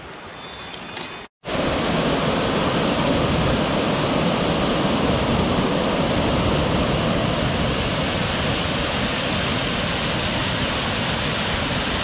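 Steady rush of a waterfall pouring over a rock ledge into a pool. It starts abruptly about a second and a half in and runs on evenly.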